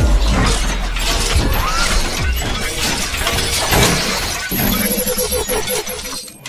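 Sound effects for an animated logo reveal: a dense run of crackling, shattering hits and metallic clicks. The low rumble at the start dies away, and the effects get quieter near the end.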